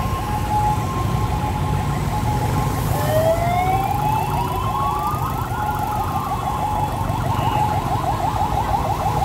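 Fire truck sirens. Steady siren tones at first; from about three seconds in, one siren wails up in pitch and falls back while another runs a fast, rapidly repeating warble. A low engine and traffic rumble runs underneath.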